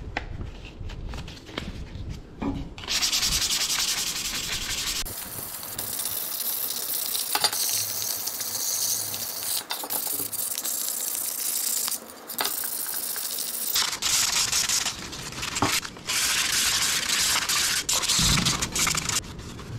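Fine P600 sandpaper rubbed by hand over the pressed-steel cab of a Buddy L toy truck. The steady scratchy strokes start a few seconds in and run in long stretches, broken by a couple of short pauses.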